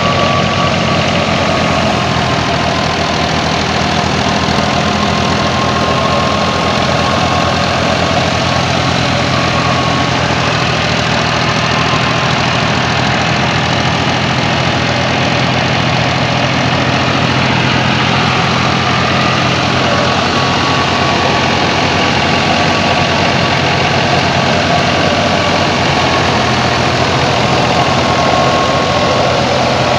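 Old Fiat 480 tractor's diesel engine running steadily, driving a wheat thresher, with a constant machinery clatter and a thin high whine that comes and goes.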